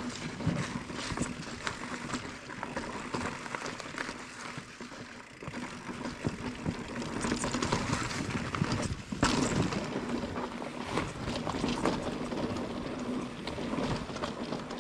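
Mountain bike ridden down a rough trail: tyres rolling over stones and roots, with constant rattling and clicking from the bike and one harder knock a little past the middle.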